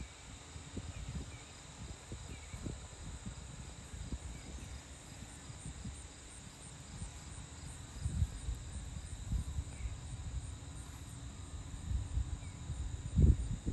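Outdoor ambience dominated by a gusty low rumble of wind on the microphone, swelling about 8 s in and most strongly near the end, with a few faint short chirps.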